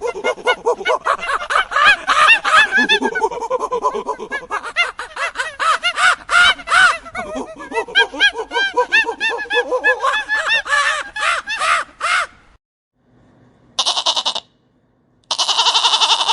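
A dense chorus of many animals calling at once: short, overlapping pitched calls that cut off about twelve seconds in. Near the end come two separate calls, the second lasting about a second and a half.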